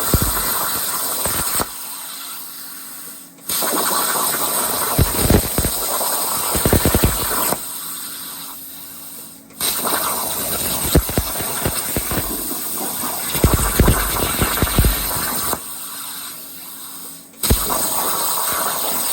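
CNC plasma cutter torch cutting: a loud, harsh hiss of the arc and air that cuts off three times for about two seconds while the torch moves between cuts, leaving a low steady hum, then starts again abruptly each time it re-fires.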